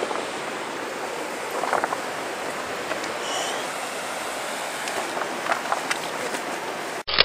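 Steady rush of river water running over rapids, with a few faint knocks from handling. The sound changes and cuts off abruptly at the very end.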